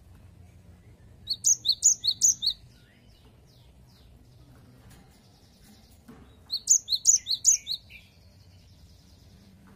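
Cinereous tit singing its 'wucit wucit' song in two bursts about five seconds apart. Each burst is a sharp high note and a lower note, alternated about four times in quick succession.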